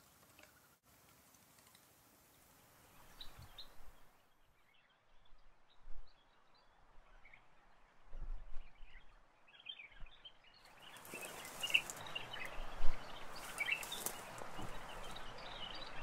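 Wild birds giving scattered short, high chirps. The chirps are sparse at first and grow busier in the last few seconds over a steady hiss of background noise, broken by a few brief knocks.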